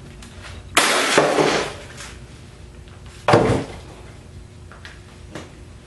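Salvaged microwave metal parts clattering as they are moved about. There are two loud clatters: a longer one about a second in and a shorter, sharper one a little past three seconds.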